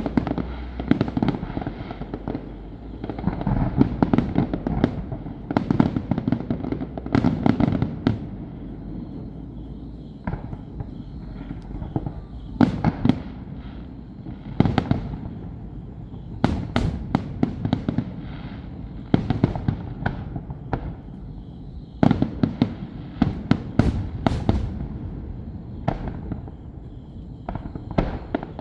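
Fireworks display: aerial shells bursting in rapid volleys of sharp bangs, over a continuous low rumble.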